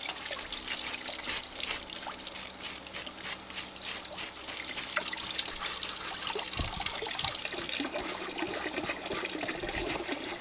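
Water running and trickling steadily, with a continuous patter of small splashes.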